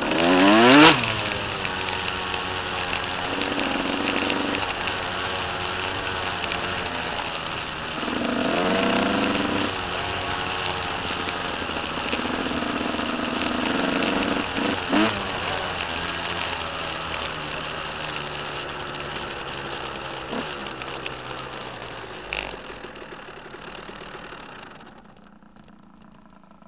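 Dirt bike engine running under way, revving up sharply about a second in and again around eight and fifteen seconds. The engine sound then drops away near the end as the bike comes to a stop.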